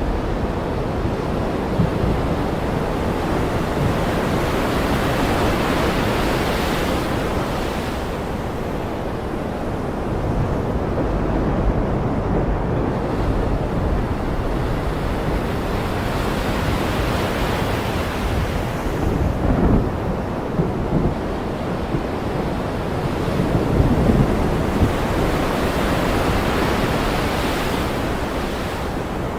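Ocean surf washing in and out in slow swells, with a few low rumbles of thunder about two-thirds of the way through.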